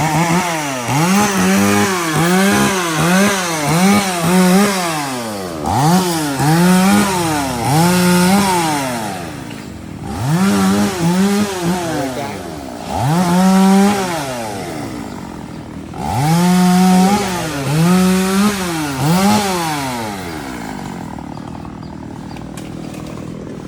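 Two-stroke chainsaw repeatedly revved, the engine climbing and dropping in quick throttle blips in several bursts with short pauses, a few revs held briefly at full throttle. It settles to a quieter steady run for the last few seconds.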